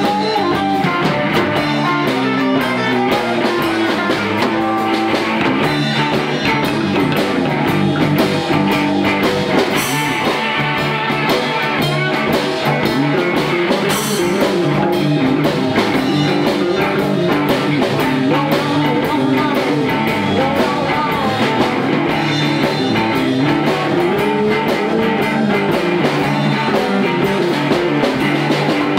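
Blues band playing live: slide guitar, electric guitar, bass and drum kit, with singing.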